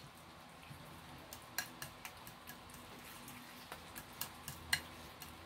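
Faint, irregular clicks and light scrapes of a utensil against a plate while a soft pumpkin mixture is mashed and stirred, with the sharpest click about three-quarters of the way through.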